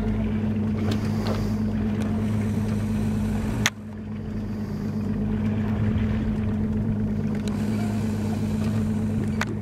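Boat's engine running with a steady low hum. A sharp click about three and a half seconds in, with the sound briefly dropping after it.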